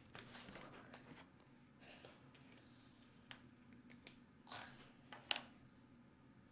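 Faint handling noises: soft rustling and scattered light clicks, with one sharper click a little after five seconds in.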